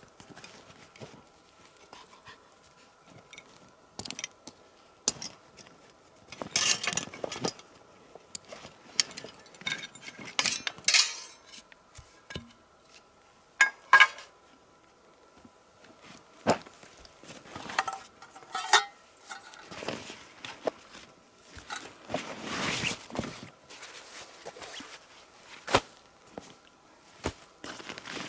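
Irregular light knocks and clinks with several longer rustling passages, as of small objects and gear being handled.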